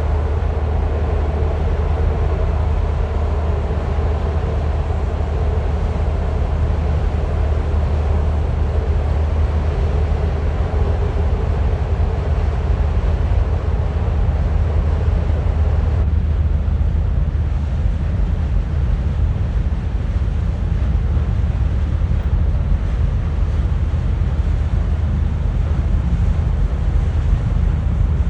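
Deep, steady engine rumble of a cargo ship moving along a canal, with a mid-pitched hum over it that dies away about halfway through.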